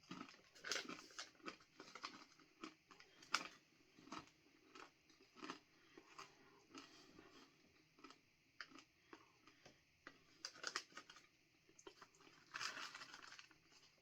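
A person chewing crunchy banana chips, with irregular crunches throughout.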